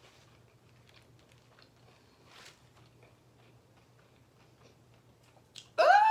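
Faint, soft chewing of a fried chicken sandwich, with small scattered clicks over a steady low hum. Near the end comes a loud, short vocal exclamation of delight that rises and then falls in pitch.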